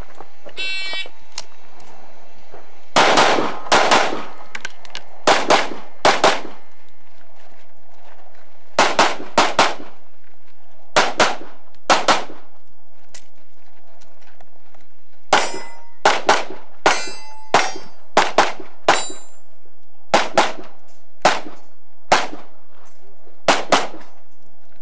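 A shot timer beeps once as the start signal. A competition pistol then fires close to thirty shots through a practical-shooting course of fire, mostly as quick double taps with short pauses between target arrays. Around the middle, several hits set steel targets ringing.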